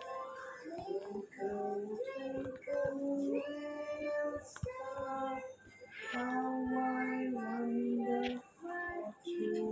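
Background song: a high singing voice in phrases over music.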